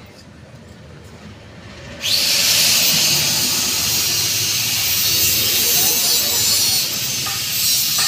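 A loud, steady hiss of a paint spray gun spraying starts suddenly about two seconds in and keeps going.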